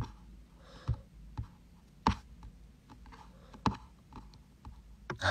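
Irregular light clicks and taps by hand, with sharper ones about one, two and three and a half seconds in.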